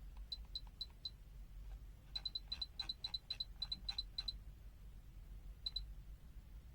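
Short, high electronic key beeps, each with a click, as the function generator's keys or knob are worked to set a new frequency. A few come singly, then a quick run of about a dozen at roughly five a second, and a last pair near the end.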